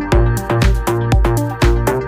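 Electronic dance music with a steady four-on-the-floor beat, about two beats a second.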